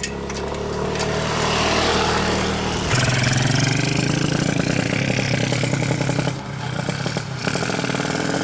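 Two-stroke 130cc underbone drag-bike engine running at a steady low speed, then revved up about three seconds in and held high, with a brief drop in revs a little after six seconds before it picks up again.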